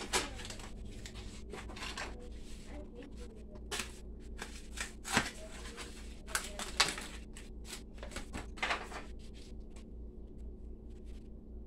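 Plastic wrapping of a vacuum-sealed pack of hot dogs crinkling and tearing as it is cut and peeled open by hand: an irregular run of sharp crackles and rustles, loudest in the middle, over a steady low hum.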